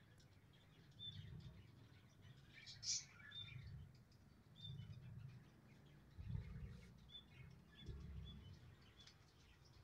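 Small birds chirping faintly and intermittently: short high chirps every second or so, with a louder burst about three seconds in. Low muffled bumps on the microphone come and go underneath.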